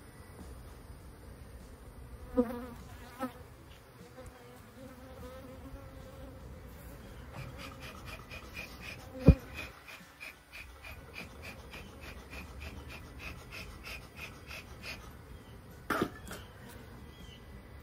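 Honey bees buzzing around an opened hive, one flying close for a few seconds with a steady hum. A few knocks of hive equipment come through, the loudest a single sharp thump about nine seconds in.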